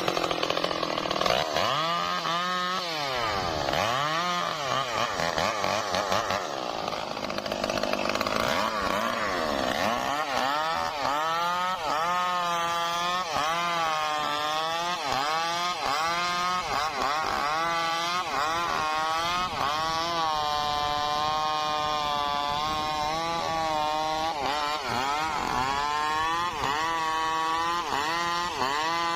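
Stihl MS 382 two-stroke chainsaw cutting trembesi wood, running hard throughout. Its engine pitch dips and recovers again and again, about once a second in the second half.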